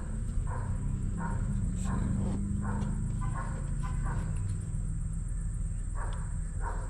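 A dog barking repeatedly over a steady low hum.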